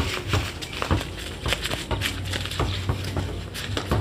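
A basketball being dribbled on the ground, with dull thuds at an uneven pace of a few bounces a second, and players' feet scuffing as they move.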